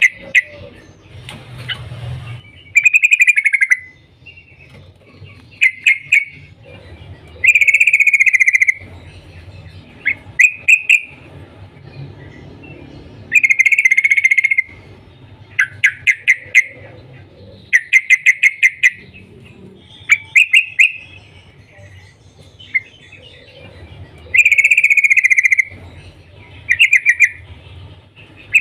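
Yellow-vented bulbul (trucuk) calling: loud bursts of rapid, stuttered "cuk-cuk" notes about every two seconds, some drawn out into chattering phrases about a second long.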